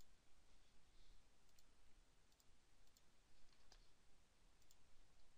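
Near silence with a handful of faint computer mouse clicks, spaced irregularly about a second apart.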